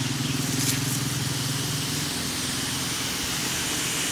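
Pressure washer running, a steady pump-motor hum under the hiss of the water jet spraying onto concrete; the hum fades out about halfway through while the hiss continues.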